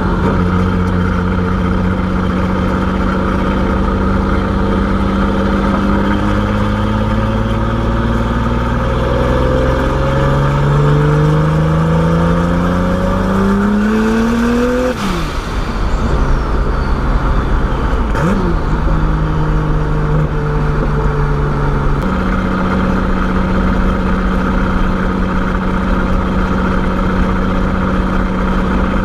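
Turbocharged BMW E30's engine pulling through a gear, its pitch climbing slowly for several seconds, then dropping sharply as the throttle closes about halfway through. A single sharp pop comes a few seconds later, and the engine settles into a steady drone for the rest.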